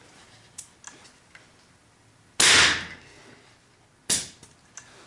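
Home-built multi-shot QEV air rifle firing a plastic valve-stem-cover projectile: one loud blast of air about halfway through, trailing off in a hiss, then a shorter sharp burst about a second and a half later. A few light clicks come before the shot.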